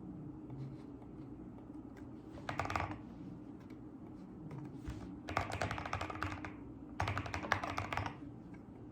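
Typing on a mechanical keyboard in three short runs of rapid key clicks, over a faint steady low hum.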